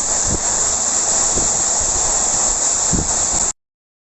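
Heavy downpour of rain and hail: a steady loud hiss with a few dull thumps, cutting off suddenly about three and a half seconds in.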